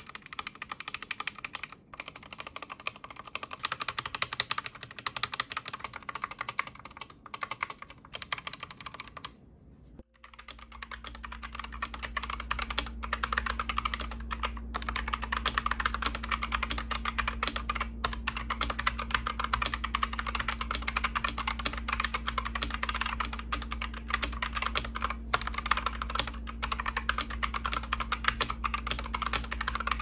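Gamakay MK61 hot-swap mechanical keyboard with Gateron yellow optical switches: for the first ten seconds or so the large stabilized keys (Enter, Shift) are pressed one after another to show how the stabilizers sound. After a short break, fast continuous typing clacks over a steady low hum.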